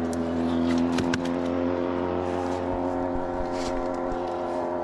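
Boat's outboard motor running steadily, its pitch dipping slightly, with a few sharp knocks about a second in.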